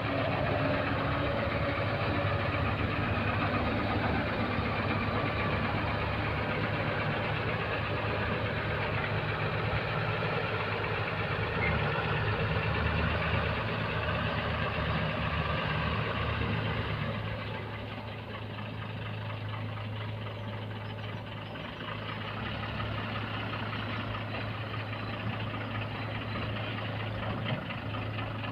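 Diesel engine of a JCB Eco Xpert Xtra backhoe loader running steadily while it works, then settling to a quieter, lower-revving run about two-thirds of the way through.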